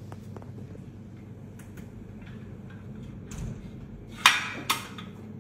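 Faint clicks of computer keyboard typing, then near the end two sharp clacks less than half a second apart as a car steering-wheel lock bar is clamped around a man's neck.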